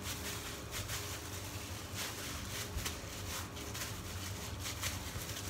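Disposable plastic gloves rustling and crinkling in short irregular bursts as hands knead and press cookie dough on a cutting board, over a low steady hum.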